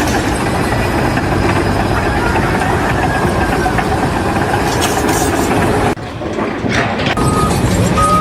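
Heavy machinery engine running steadily, cut off abruptly about six seconds in. After a short break it resumes, with short beeps of a reversing alarm near the end.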